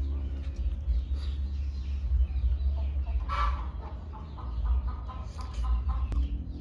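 Chicken clucking: one loud call about three seconds in, then a run of short, quick clucks, over a steady low rumble.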